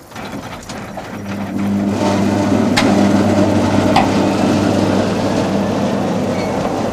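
Electric rack railcar of the Tramway du Mont Blanc pulling away. Its drive hums steadily, building up over the first two seconds, with mechanical clattering and a few sharp clicks.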